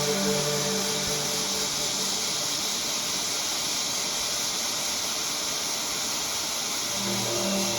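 Steady hiss of a hot air rework station blowing while a chip is desoldered or reflowed. Low pulsing tones sound over it for the first couple of seconds and again near the end.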